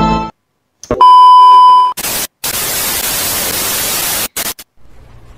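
TV 'no signal' sound effect: a click, then a loud steady beep lasting about a second, followed by loud static hiss that drops out briefly and stops abruptly a little after four seconds in, leaving a faint hum.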